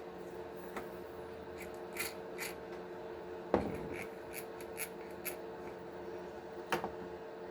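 Light clicks and ticks of a small hex driver and plastic parts as screws are snugged into the Axial SMT10's plastic axle housing to hold the bearing in place. There are two louder knocks, about three and a half and nearly seven seconds in, over a steady hum.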